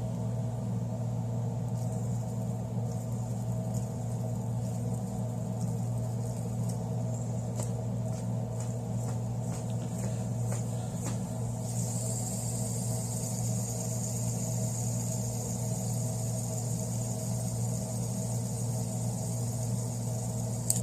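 Fidget spinner spinning on its bearing: a steady low whirring hum, with a thin high hiss that grows louder about halfway through.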